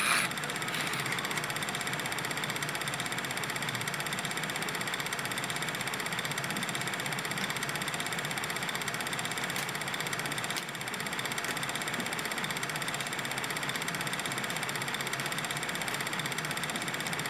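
Steady mechanical whirr with an even hiss and a few faint clicks, unchanging except for a brief dip a little past halfway.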